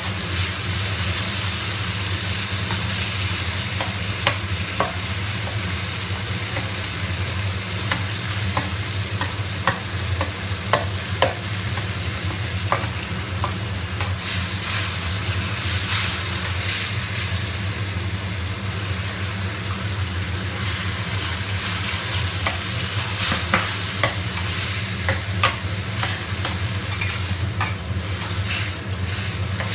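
Tomatoes sizzling as they are stir-fried in a wok, with a metal spatula scraping and clicking against the wok again and again, over a steady low hum.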